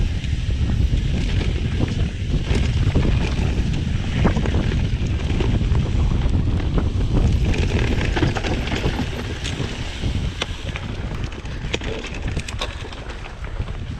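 Wind buffeting the microphone of a mountain biker's camera while riding, over a dense low rumble with many small clicks and rattles; the noise eases off over the last few seconds.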